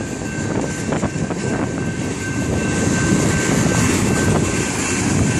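Freight train cars rolling past at a grade crossing: a steady, loud rumble of steel wheels on rail, with a few sharp clanks in the first couple of seconds and a faint steady high tone above it.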